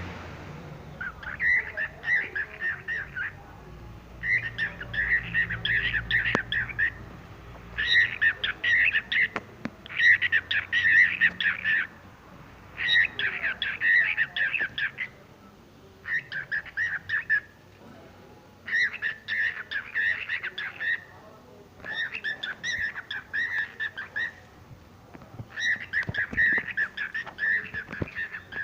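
A bird singing in a run of trilled phrases, each about two seconds long, repeated about nine times with short pauses between them.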